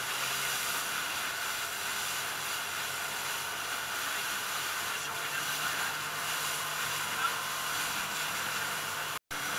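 Motorboat running at speed: a steady engine drone under the rush of water and spray. The sound cuts out for a split second near the end.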